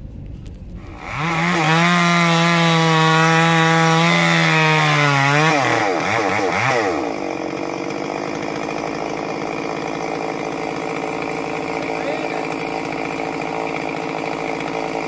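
Two-stroke chainsaw starting up about a second in and running hard at high revs, its pitch wavering and dropping a few seconds later, then running on steadily and somewhat quieter.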